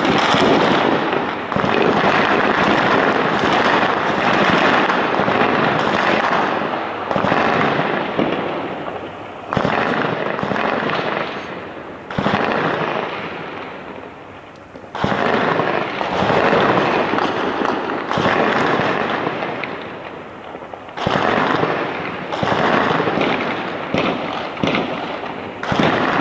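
Heavy gunfire from an urban firefight: dense, continuous crackling shots, with several sudden louder volleys or blasts that each die away over a few seconds.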